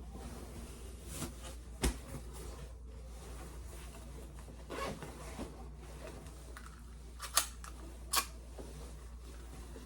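Small objects being handled, giving a few sharp clicks, the loudest about two seconds in and near the end, over a steady low hum.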